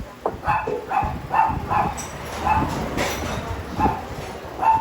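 A dog barking repeatedly, short barks about two or three a second.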